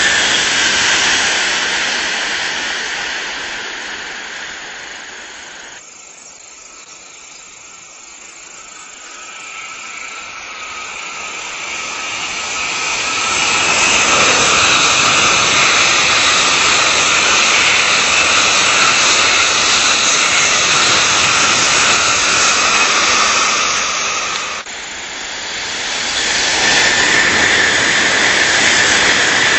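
Tokaido Shinkansen bullet trains passing at speed, a loud rushing hiss. The first fades away over the first six seconds. The next builds from about nine seconds and stays loud until it drops off suddenly about 25 seconds in. Another builds up again near the end.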